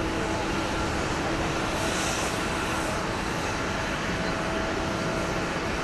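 Jet engines of a taxiing Boeing 787-9 airliner: a steady, even rumble with a faint constant whine running through it.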